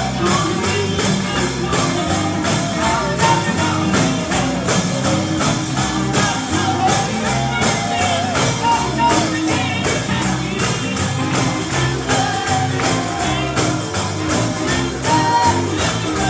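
Live gospel music with a tambourine keeping a fast, even beat over stepping bass notes and a wavering melody line.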